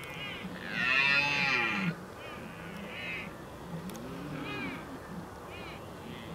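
Red deer stags roaring in the rut: one loud, drawn-out roar about a second in, then several shorter, fainter roars.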